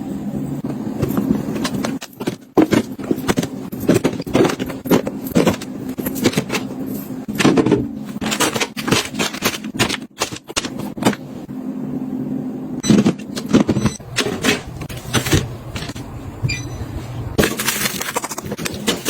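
Household items being handled, set down and arranged: a dense run of clicks, taps and light scrapes over a steady low hum.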